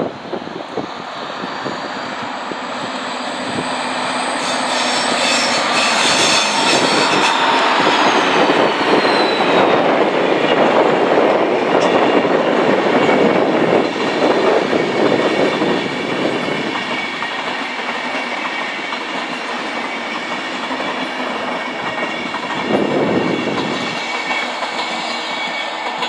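Two DB class 218 diesel-hydraulic locomotives hauling a EuroCity passenger train past, their diesel engines growing louder as they approach, with a high whine that falls in pitch as they go by. Then the steady clickety-clack of the passenger coaches' wheels over rail joints and points as the train rolls through.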